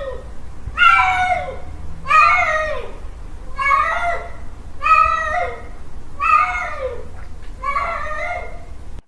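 Male cat calling for a mate: a series of about six drawn-out meowing yowls, one every second or so, each dropping in pitch at its end.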